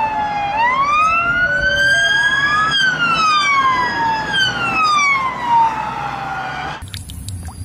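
British police car sirens wailing, two of them overlapping, each sweeping slowly up and then slowly down in pitch. The sound cuts off abruptly near the end.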